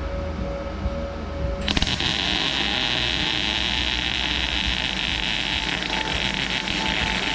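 Miller Multimatic 220 MIG welder striking an arc a little under two seconds in, then crackling and sizzling steadily as a seam weld is run along the car's sheet-steel underbody.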